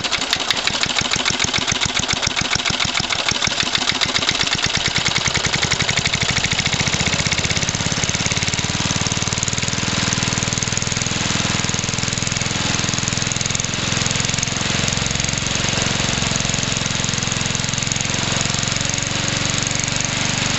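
1966 Briggs & Stratton 3.5 hp single-cylinder four-stroke mower engine running. For the first several seconds each firing stroke comes through as a rapid, distinct beat; from about eight seconds in it runs smoother and steadier.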